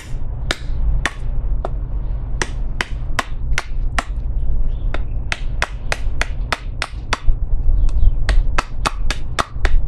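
A fixed-blade knife chopping into a wooden stake to carve a pointed end. It makes a quick series of sharp chopping strikes, about two a second at first and coming faster, nearly four a second, over the last few seconds, over a steady low rumble.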